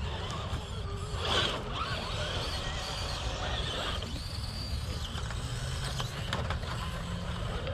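Electric motors and gear drives of RC rock crawlers whining as they crawl over rocks, the pitch rising and falling with the throttle, over a steady low rumble.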